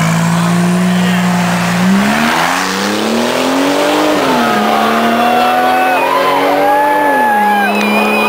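Car engine accelerating hard away from a standing start, revs climbing and then dropping sharply at gear changes, about four and seven seconds in.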